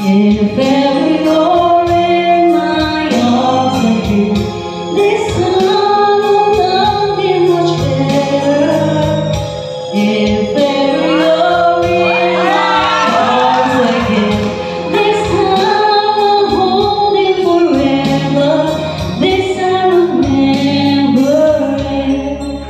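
Live song: singers, with a woman's voice prominent, sing with vibrato to an electronic keyboard accompaniment of sustained notes.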